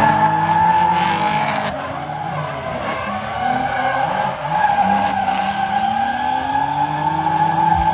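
Two drift cars sliding in tandem, their tyres squealing steadily while their engines rev hard, pitch rising and falling with the throttle.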